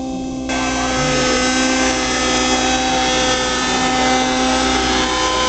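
Gas-powered radio-controlled scale Bell 222 helicopter in flight, its small petrol engine and rotors running at a steady pitch.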